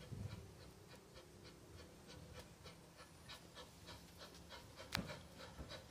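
Corris Railway No. 10, a narrow-gauge steam locomotive, working hard up a gradient: faint rhythmic exhaust beats, about four a second. A single sharp click about five seconds in is the loudest moment.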